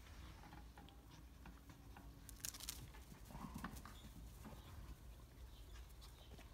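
Near silence, broken by a few faint short sounds from a young puppy moving on a lawn: a brief sharp rustle about two and a half seconds in, then a small puppy noise about a second later.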